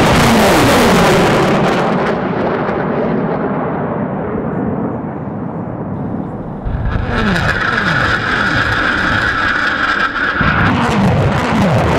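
Salvo of 220 mm rockets launching from BM-27 Uragan multiple rocket launchers. The rocket motors' roar fades as they climb away, then a fresh roar starts abruptly about halfway, with rockets leaving one after another, each falling in pitch.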